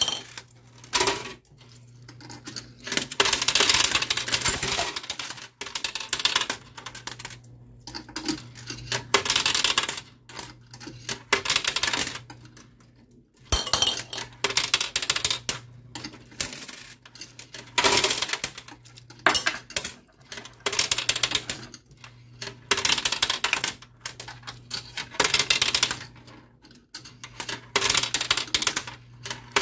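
Quarters clattering and clinking in a coin pusher machine, in irregular bursts every second or two, over a steady low hum.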